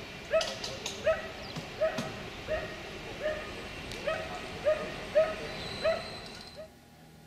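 A dog barking repeatedly at an even pace, about one short bark every two-thirds of a second, stopping shortly before the end.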